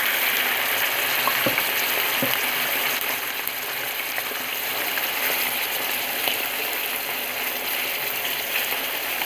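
Raw chicken pieces sizzling in hot oil in a frying pan, a steady hiss just after the meat has gone into the oil, easing a little as it settles.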